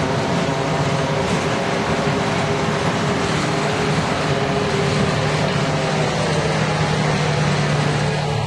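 A work train's flatcars loaded with concrete railroad ties rolling slowly past close by: a steady rumble of wheels on rail with a low hum underneath that grows stronger about halfway through.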